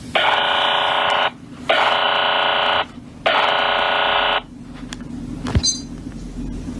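Emergency alert data-burst tones: three harsh buzzing electronic bursts, each about a second long with short gaps between. After them come a sharp click and a low rumbling hiss that grows louder near the end.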